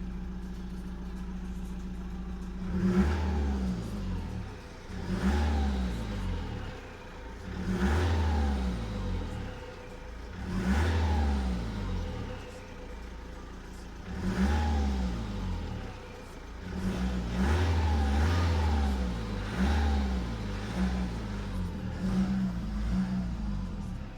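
Car engine idling steadily, with repeated brief swells about every two to three seconds in which the pitch rises and falls back, as when the throttle is blipped.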